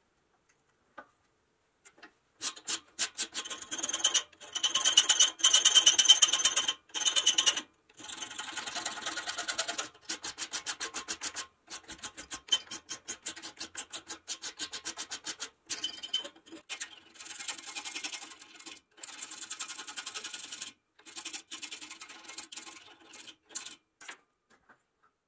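Fast, repeated rubbing strokes of abrasive hand work, in a run of short clips that start and stop abruptly; loudest for a few seconds near the start.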